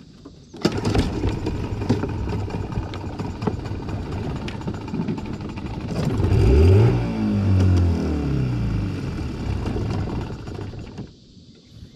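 Small outboard motor on a jon boat starting up suddenly about half a second in and running, its revs dipping and rising again midway, then cutting out shortly before the end: the engine stalls, leaving the boat stuck.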